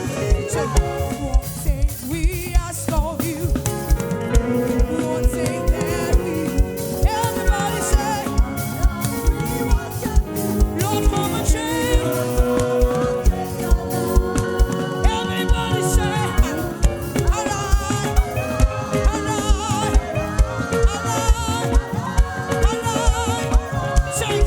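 Live gospel praise music: a band playing over a steady drum beat of about two hits a second, with sung melody lines.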